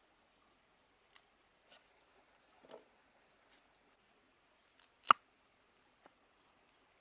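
A large cleaver cutting cauliflower stalks on a thick wooden chopping board: a few soft cuts and crunches, then one sharp chop into the board about five seconds in, with a lighter knock a second later.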